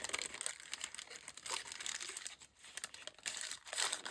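Packaging being handled: irregular crinkling and rustling with a few sharp crackles, as paper and wrapping are crumpled and pulled about.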